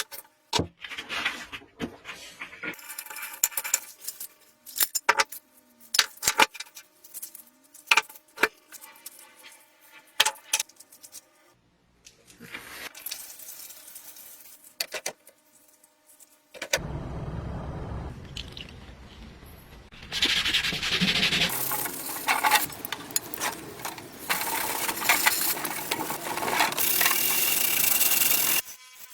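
Metal parts of a weighing scale clinking, rattling and scraping as it is worked on, a string of sharp clinks, some ringing briefly. From a little past halfway a steady loud hissing noise with a low rumble takes over, growing harsher, and cuts off suddenly near the end.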